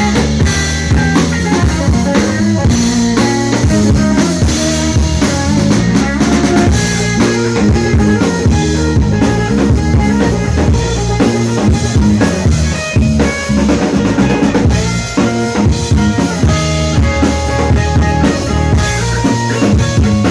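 Live blues band jamming on electric guitar, bass guitar and drum kit, with the drums prominent.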